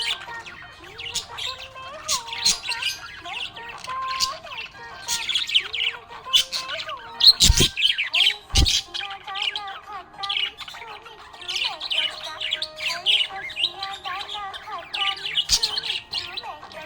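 Budgerigars chirping and warbling in a dense, rapid, continuous chatter. Two sharp knocks come about seven and a half and eight and a half seconds in.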